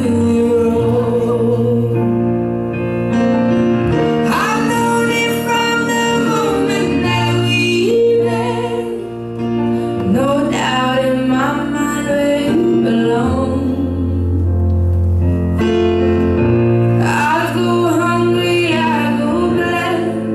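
Music for a rumba: a song with a singing voice, its notes wavering with vibrato, over long held bass notes.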